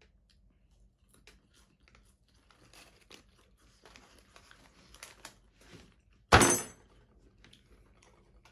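Faint rustles, clicks and chewing while eating French fries from a paper fry carton, with one loud short noise about six seconds in.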